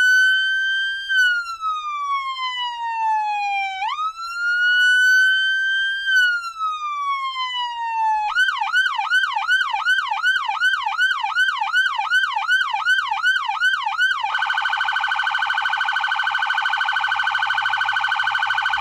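Police car's electronic siren: a slow wail rising and falling twice, then switching to a fast yelp of about three sweeps a second, and then to a very rapid, steady warble.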